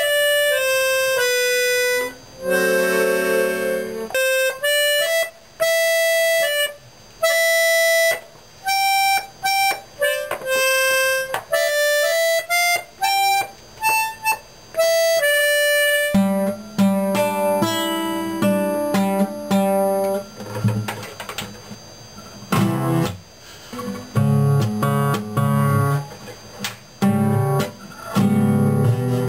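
A small piano accordion plays a halting melody of single held notes with short breaks between them. About halfway through it gives way to an acoustic guitar, picked and strummed unevenly, a few notes and chords at a time.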